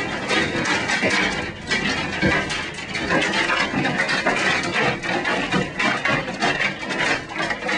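Large hail, golf ball to baseball size, pounding a high-rise office building in a dense, continuous clatter of rapid, irregular impacts.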